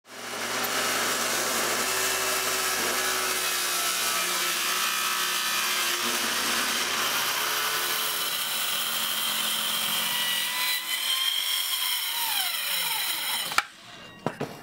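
Electric power saw cutting wood, running steadily under load, then switched off about two-thirds of the way through and winding down with a falling whine, ending in a sharp click.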